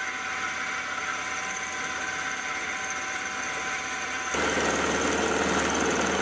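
Sieg X2.7L mini milling machine running an end mill through a metal bar, a steady motor whine with the sound of the cut. About four seconds in, the sound changes abruptly and gets louder and rougher.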